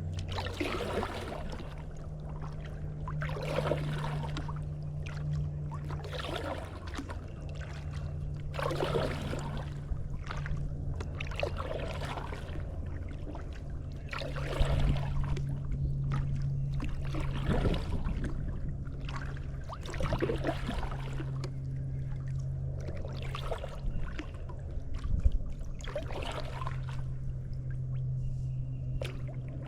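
Kayak paddle strokes: the blades dip and splash water every two to three seconds, with dripping between strokes. A steady low hum runs underneath.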